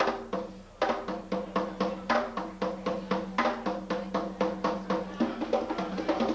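Solo drumming: pitched drums struck in a fast, even rhythm of about six strokes a second, with a brief break just after the start.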